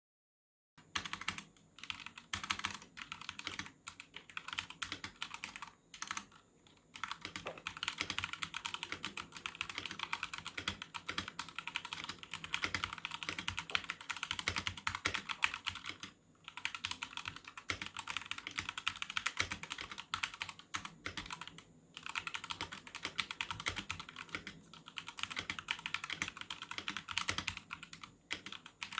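MageGee MK-box 65% mechanical keyboard being typed on quickly: a rapid, continuous clatter of key clicks that starts about a second in and stops briefly a few times.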